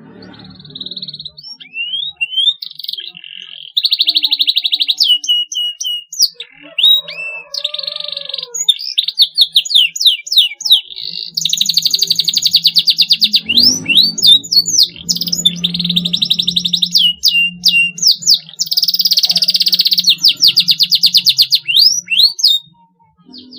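Domestic canary singing: fast trills and rolls mixed with quick rising and falling chirps, in phrases broken by short pauses.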